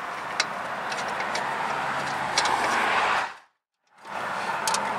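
Scattered light metallic clicks as bolts and mount hardware are handled by hand in an engine bay, over a steady background hiss. The sound cuts out for about half a second a little past halfway.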